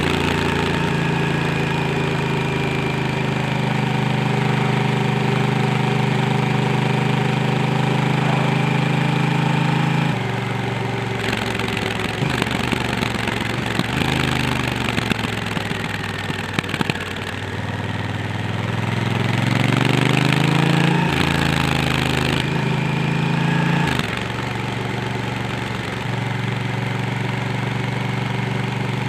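Honda Africa Twin's parallel-twin engine running under way, steady for about ten seconds, then the revs drop, fall away and climb again through rising pitch, and settle to a steady lower note near the end, as with slowing and accelerating through the gears.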